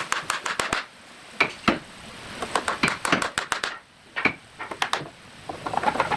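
Irregular sharp taps and clicks in quick bunches, with short lulls about a second in and again near four seconds in.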